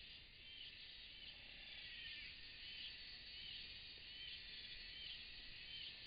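Faint, steady insect buzzing with short chirps repeating roughly once a second, picked up by a trail camera's microphone.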